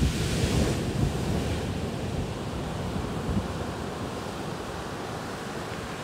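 Small sea waves washing in on the shore, the wash loudest in the first second and then slowly fading, with some wind rumble on the microphone.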